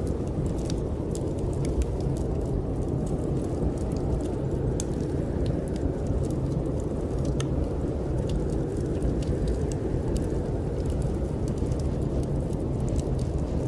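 Snowstorm wind blowing steadily and low, with frequent small crackles and pops from a wood fire burning in a fireplace.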